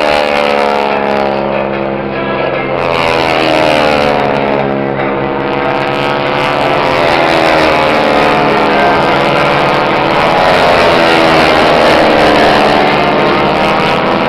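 Radial engines of T-6 Texan trainers in aerobatic flight, their Pratt & Whitney R-1340 nine-cylinder radials and propellers droning steadily. The pitch slides down and back up several times as the aircraft pass and turn.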